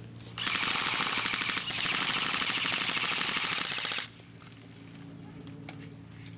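Airsoft rifle firing on full auto in two long bursts, a short one of about a second and a longer one of about two and a half seconds, each a fast, even run of shots. The firing cuts off about four seconds in.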